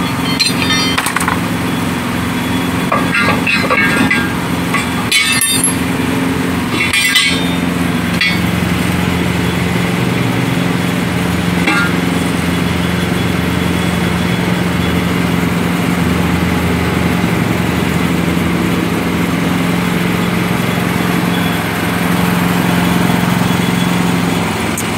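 An engine running steadily at idle, with scattered metallic clinks and knocks of wheel tools during the first several seconds.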